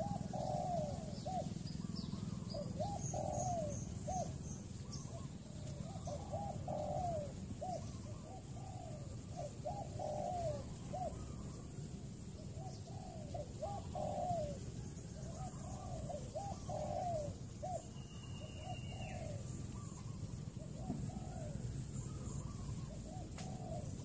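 Spotted dove cooing: phrases of short, low, arched coos repeated again and again. A few faint high chirps from small birds come in the first few seconds.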